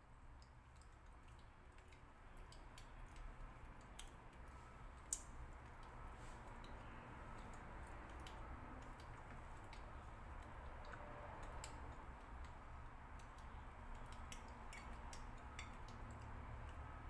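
Faint eating sounds: quiet chewing with scattered small clicks, one sharper click about five seconds in, over a low steady hum.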